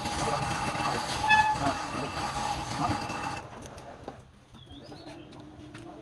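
Wood lathe running, a steady whine under dense noise, which drops off abruptly about three and a half seconds in, leaving a quieter bed with scattered clicks and taps.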